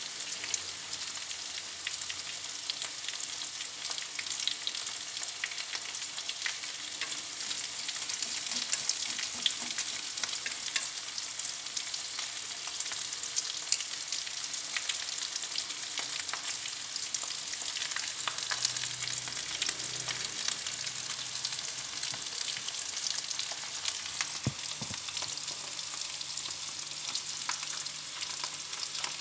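Shrimp frying in hot oil in a frying pan: a steady sizzle full of small crackles, with the light knocks and scrapes of a utensil turning them.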